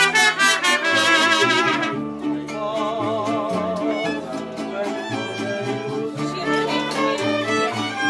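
Mariachi band playing: violins with vibrato over a stepping bass line, fuller and brighter for the first two seconds with brass, then the violins carry the tune.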